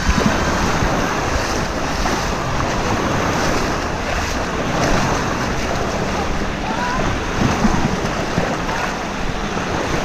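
Wave pool water washing and splashing in the shallows, with wind buffeting the microphone. Faint shouts of swimmers come through about seven seconds in.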